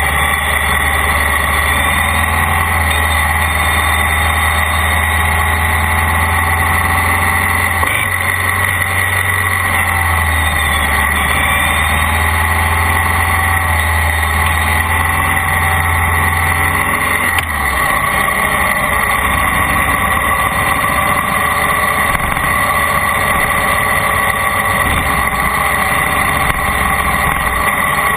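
Motor vehicle running steadily on a ride, with a continuous engine and road noise. A deep low rumble in it cuts off suddenly about two-thirds of the way through.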